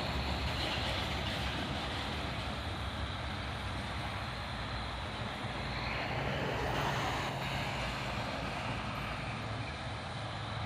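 Heavy truck's diesel engine pulling slowly up a steep grade: a low steady drone under road noise, growing a little louder about six seconds in.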